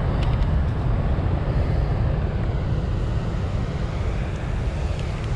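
Steady rushing noise of water pouring through a dam spillway, with wind buffeting the microphone and making a heavy low rumble.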